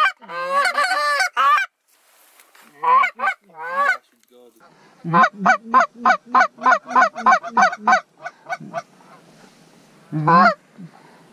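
Canada goose honks and clucks: a few honks at the start, a couple more about three seconds in, then a fast run of clucks at about four to five a second for some three seconds, and one last honk near the end.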